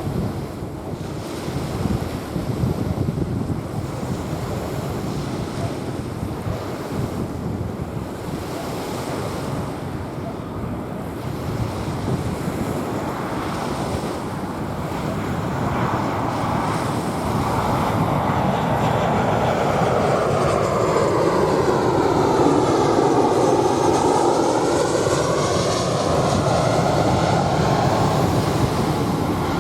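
Waves washing onto a sandy beach, with wind on the microphone. From about halfway through, a jet airliner passes low overhead: its noise swells in with a whoosh that sweeps down and back up in pitch, and it is loudest about three quarters of the way through.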